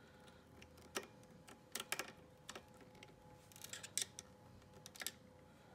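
Snap-ring pliers and a steel retaining ring clicking faintly and irregularly as the ring is worked into the fuel pressure regulator's bore, with a louder click at the very end as the ring seats.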